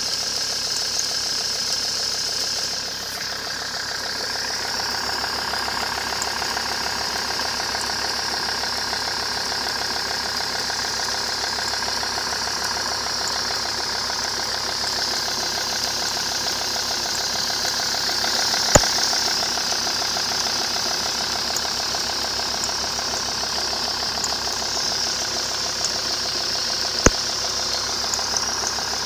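Alfa Romeo 156 2.4 JTD 20V five-cylinder diesel engine running steadily at idle with a rattling, knocking-type noise that the owner calls a bad noise and cannot identify, despite a new timing belt set at 200,000 km. Two sharp clicks stand out, one about two-thirds of the way through and one near the end.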